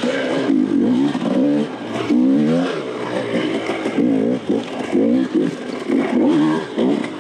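Dirt bike engine revving up and dropping back over and over, about once a second, as it is ridden hard.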